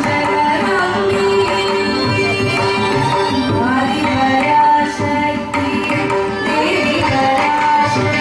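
Woman singing a devotional song in Carnatic style, holding long notes with gliding ornaments, accompanied by a hand-played mridangam drum.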